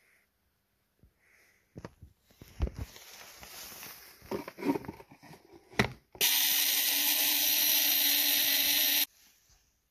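Ford Model T trembler (spark) coil buzzing on a coil tester: a loud, steady buzz that starts abruptly and cuts off suddenly after about three seconds. Before it come knocks, clicks and rustling as the coil is handled.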